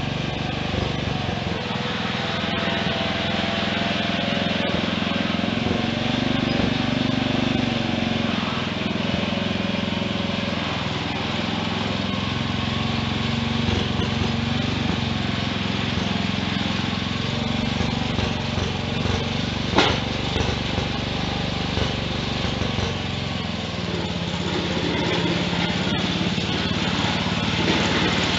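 Wheel Horse garden tractor engine running steadily out of sight, its pitch shifting a little now and then, growing louder near the end as it comes closer. A single sharp click about two-thirds of the way through.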